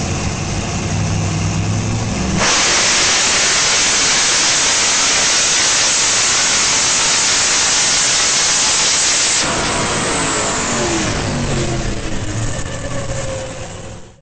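Drag car's hemi V8 heard from inside the cockpit. It runs low and even at first; about two seconds in it goes suddenly to full throttle, a loud, even rush that swamps the microphone for about seven seconds of the quarter-mile pass. It then cuts off sharply, and falling engine notes follow as the car slows before fading out at the end.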